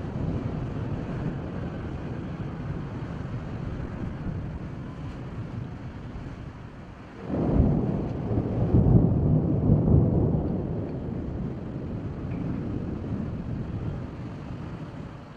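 Thunder: a sudden clap about seven seconds in, rolling into a rumble that peaks a couple of seconds later and dies away, over a steady low background noise.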